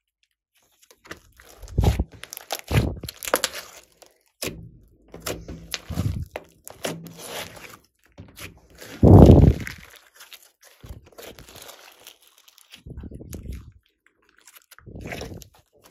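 Hands squishing, folding and stretching a large lump of glossy slime mixed with foam beads, giving irregular wet squelches, sticky pops and crackles. The loudest is a deep squelch about nine seconds in.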